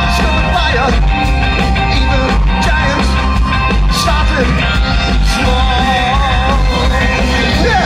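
Live rock band playing loudly, electric guitar over a heavy, steady bass, with a wavering melody line in the middle range.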